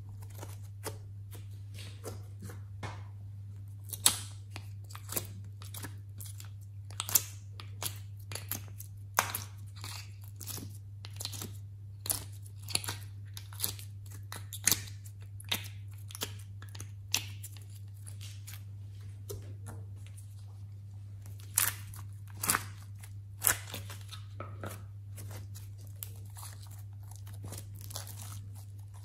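Sticky slime and soft clay squeezed, stretched and pulled apart by hand, giving irregular wet clicks and crackles with scattered louder snaps. A steady low hum runs underneath.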